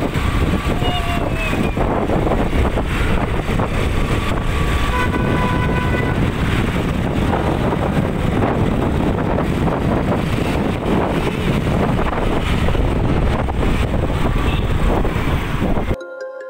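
Wind buffeting a phone's microphone over the rumble of a moving motorbike and road traffic, cutting off suddenly near the end.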